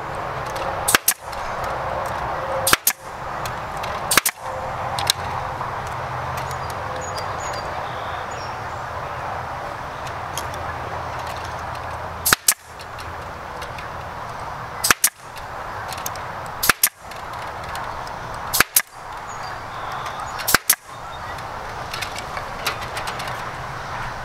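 Pneumatic stapler firing staples through wire mesh into a wooden frame, about eight sharp shots. Three come in the first few seconds, then after a pause of several seconds one comes about every two seconds, with a steady background hiss between them.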